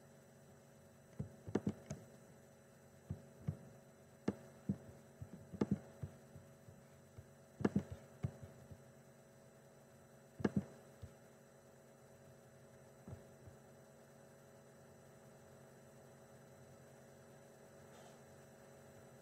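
Faint steady electrical hum, with a string of short clicks and taps over the first ten seconds or so from a computer being worked with its mouse or touchpad, then only the hum.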